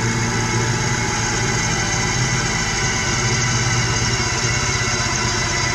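Power drill running steadily under load, its twist bit boring a hole through a sheet-metal box.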